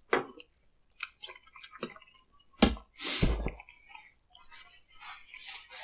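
Close-miked chewing and wet mouth sounds of someone eating saucy cheese ravioli, with scattered small clicks. A sharp knock about two and a half seconds in is the loudest sound, followed by a brief rustle.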